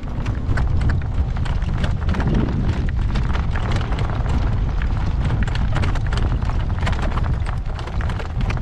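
Strong wind buffeting the microphone as a steady low rumble, with a horse's hooves clip-clopping through it.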